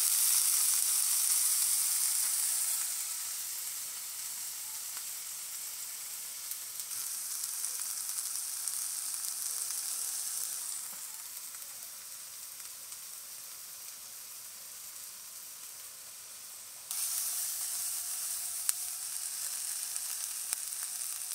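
Diced onion and green pepper sizzling in hot oil in a nonstick skillet: a steady hiss, loudest in the first few seconds, stepping down and back up in level a few times.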